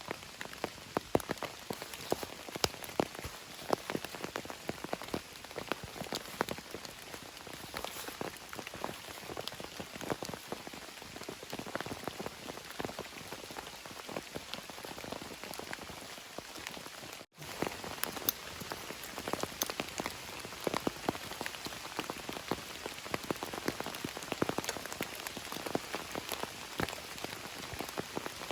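Steady rain, with many separate drops striking close by. The sound cuts out for an instant about two-thirds of the way through.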